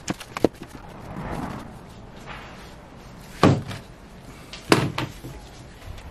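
Glued wooden blocks and one-handed bar clamps handled on a workbench. A few light clicks come at the start, a brief scrape follows about a second in, then two sharp knocks come about three and a half and five seconds in.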